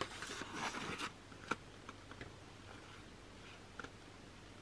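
Pages of a thick album photobook being turned by hand: a paper rustle for about a second, then a single sharp tap about a second and a half in, followed by faint handling ticks.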